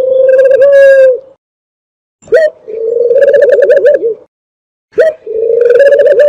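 Dove lure call: repeated dove purring coos, each a short upward note followed by a long, rapidly pulsing purr, with about a second between calls.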